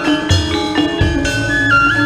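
Gamelan tetalu, a West Javanese instrumental overture: bronze metallophones struck in a running pattern under a held melody line that slides between notes, with a low drum coming in about a second in.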